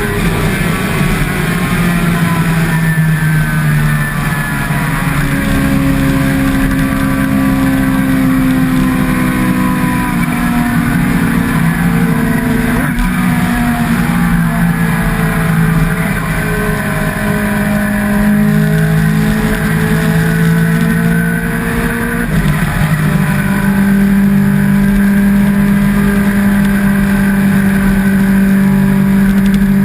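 Sport motorcycle engine running at road speed, its pitch drifting slowly up and down with the throttle and shifting abruptly about three quarters of the way through, over steady wind and road noise.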